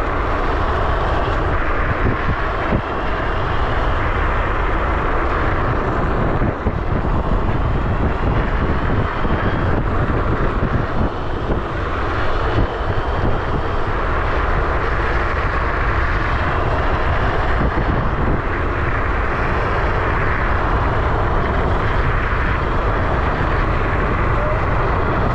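Electric scooter riding at speed: wind buffeting the microphone over steady road noise, with a faint high motor whine that rises and falls.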